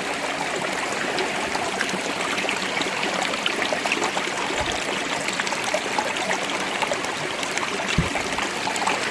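Small shallow stream running and trickling over rocks in a steady rush, with a couple of faint low knocks.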